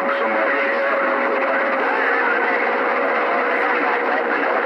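CB radio receiver static: a steady band of hiss with a faint steady whistle running through it, as an open channel sounds between transmissions.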